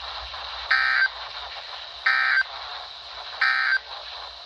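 Three short bursts of NOAA Weather Radio SAME digital data, the warbling End of Message signal that closes the flood warning alert, about a second and a half apart. It plays through a weather radio's speaker over steady reception hiss.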